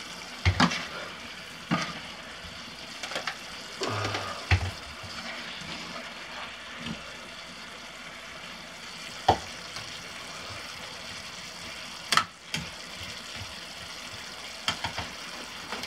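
Cooked butternut squash sizzling in a frying pan, a steady hiss, with scattered clicks, scrapes and knocks of a spatula against the pan and a small blender cup as the squash is scooped in; the loudest knock comes about twelve seconds in.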